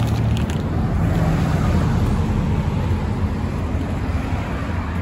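Traffic on a town street: cars driving past, with steady engine rumble and tyre noise on the road.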